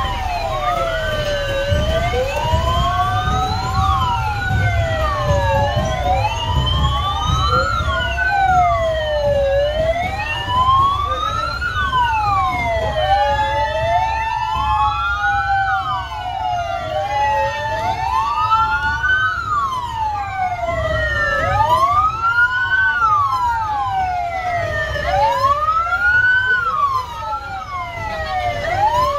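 Several fire-truck sirens wail at once, out of step with one another, each rising and falling every few seconds. Under them runs a low rumble of slow-moving truck engines.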